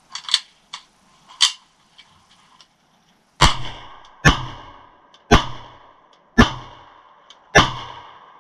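Sig Sauer Copperhead 9mm pistol firing five single shots, roughly a second apart, each trailing off quickly. A few light clicks come before the first shot.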